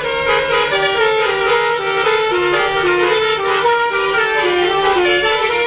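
Basuri musical air horn on a bus playing a melody, a tune of stepped notes over a steady held tone.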